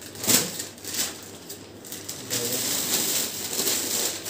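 Plastic carry bags and cellophane garment packets rustling and crinkling as they are handled and opened, with a sharp crackle about a third of a second in and another near one second, then a busier stretch of rustling through the second half.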